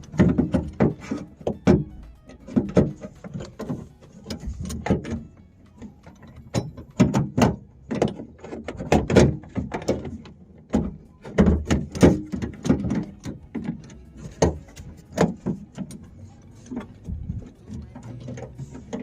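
Irregular clicks, clunks and rattles of metal parts being worked inside a car door while the lock cylinder assembly is fitted back in place and screwed down.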